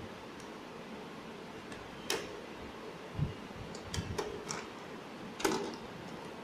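About five sharp clicks and taps from a screwdriver and a ceiling-mount bracket as the bracket is set onto a projector's underside and screwed down, over a steady background hiss.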